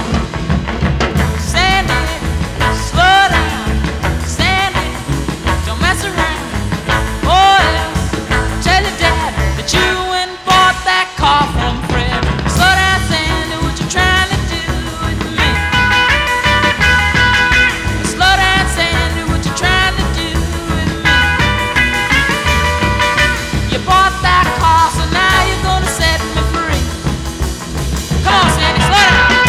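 Upbeat background music with a steady beat, briefly thinning out about ten seconds in.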